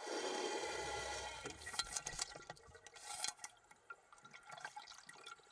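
Underwater water noise: a sudden rush with a low rumble for about a second and a half, then scattered clicks and crackles, as a mahi-mahi is speared and thrashes on the line.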